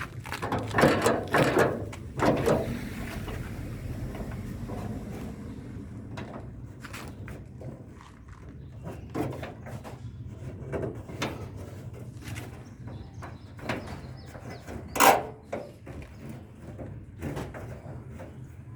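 Irregular clicks, knocks and rattles of hand work on a Jeep door lock, with one louder knock about fifteen seconds in, over a low steady hum.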